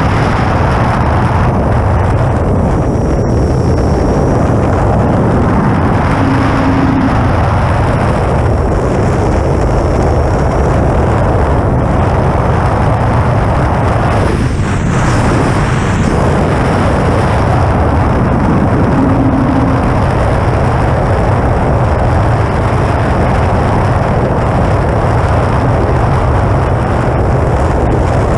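Wind rushing and buffeting loudly over a wingtip-mounted action camera on an E-flite Air Tractor RC model plane in flight, steady throughout with a brief surge about halfway through.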